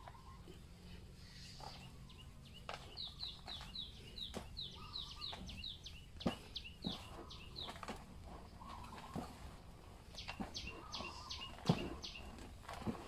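A small bird chirping in two quick runs of short falling notes, about four a second, over soft rustling and scattered light knocks from hands mixing damp homemade chicken feed of duckweed, rice bran and molasses in a basin.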